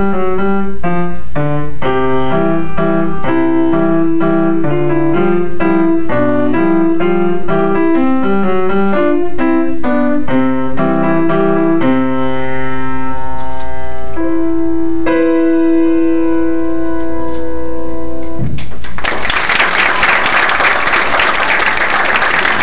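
Grand piano played solo: a run of quick notes, then slower, long held chords as the piece ends. Audience applause breaks out for the last few seconds.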